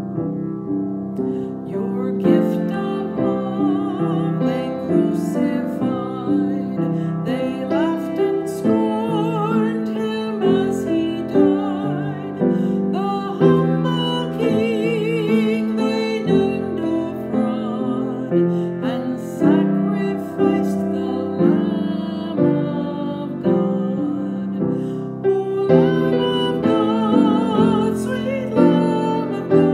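A woman singing solo with vibrato over piano accompaniment, sustained chords under a slow sung melody.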